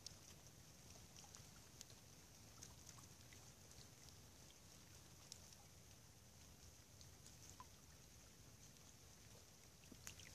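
Near silence: faint steady hiss and low rumble, with scattered soft ticks here and there.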